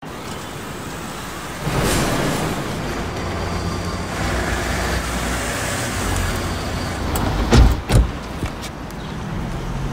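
Car park traffic ambience: a steady rumble of car engines and tyres. Near the end come a few knocks, two of them loud and close together.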